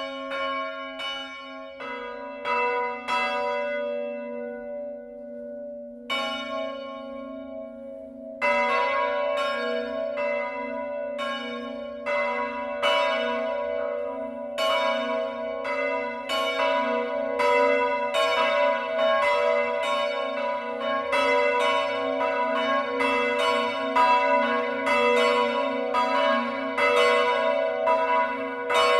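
Church bells ringing a mourning peal: a single bell strikes first, a few strokes a second with a steady low hum under it, then more bells join about six and eight seconds in and the ringing grows louder and fuller.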